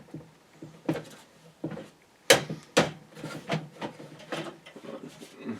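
Hands working parts into a PC case: a run of small clicks, knocks and scrapes of metal and plastic, with two sharp knocks about half a second apart a little past two seconds in.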